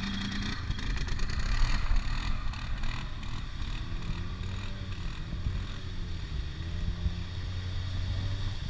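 Off-road engines: a quad ATV pulls away close by at the start, then an Arctic Cat Wildcat side-by-side's engine revs up and down as it churns through the mud. Wind buffets the microphone for a couple of seconds early on.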